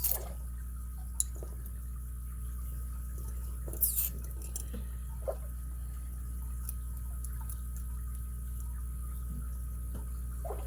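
Faint, scattered metallic clicks and taps from a lock pick working the pin stack of an ABUS 83CS/55 padlock, the loudest just at the start and about four seconds in, over a steady low hum.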